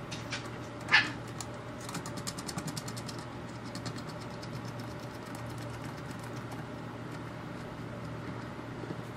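Small screw fasteners on a metal gauge mounting bracket being threaded and turned by hand: a single click about a second in, then a quick run of fine metallic ticks for about a second, over a low steady hum.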